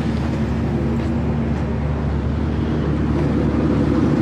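Car engine running at a steady idle, a continuous low drone that grows a little louder near the end.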